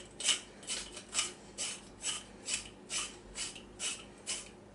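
Salt being added to a pot of soup from a hand-held salt dispenser: about ten short, evenly spaced strokes, roughly two a second.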